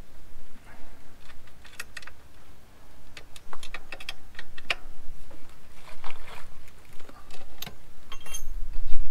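Scattered small metallic clicks and knocks of hands working the rear axle of an upside-down electric mountain bike while taking the rear wheel out, with a brief metallic ring near the end.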